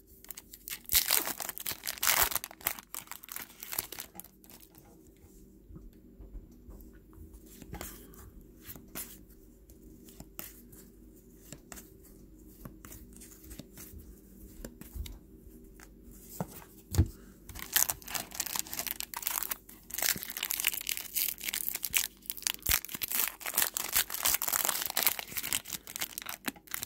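Foil trading-card pack wrappers crinkling and tearing open in the hands, loudest in the first few seconds and again over the last ten or so. In between, a quieter stretch of small clicks as a stack of cards is shuffled and flicked through.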